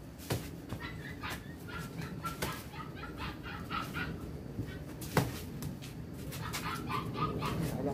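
Taekwondo kicks smacking against handheld kick paddle targets, several sharp slaps with the loudest about five seconds in, over short high-pitched calls in the background.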